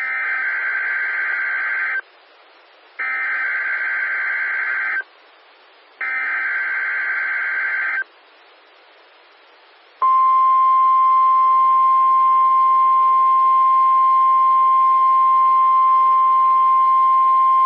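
NOAA Weather Radio weekly alarm test heard over a weather radio. First come three buzzy, warbling digital SAME header bursts, each about two seconds long and a second apart. About ten seconds in, the steady single-pitch 1050 Hz warning alarm tone begins.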